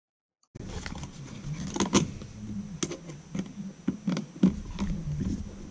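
A duplex outlet is pressed into a plastic box extender and its long mounting screw driven in with a screwdriver: irregular clicks and scrapes of the metal screw and strap against the plastic. It starts about half a second in.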